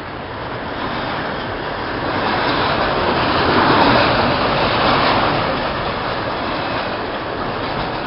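Double-stack container train's well cars rolling past close by: steady wheel-on-rail noise and rattle, swelling a little in the middle.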